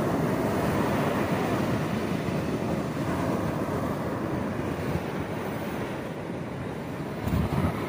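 Ocean surf washing on the beach, a steady rushing noise, with wind buffeting the microphone. A brief muffled thump near the end.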